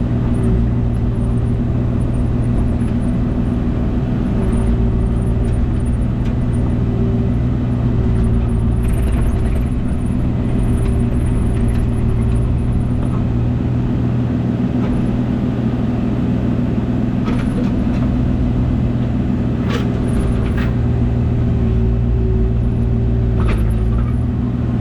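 Diesel engine of a compact construction machine running steadily at a constant speed, with a few faint knocks and clatters over it.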